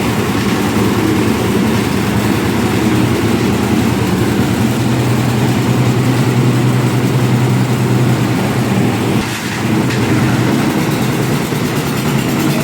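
Engine of a concrete lift mixer machine running steadily with an even low hum, dipping briefly about nine seconds in.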